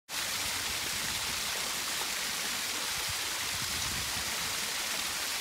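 Woodland brook running over a series of small stone steps: a steady, even rushing of water.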